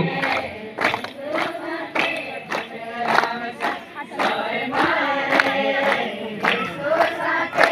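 Group of voices singing a devotional garba song over a sharp beat about twice a second.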